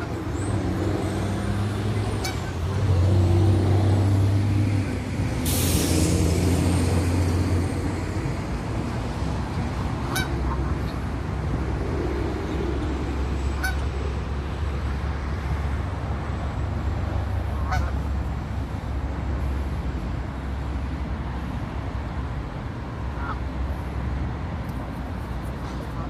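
Steady low rumble of road traffic, swelling for a few seconds early on, with a short sharp hiss about five and a half seconds in.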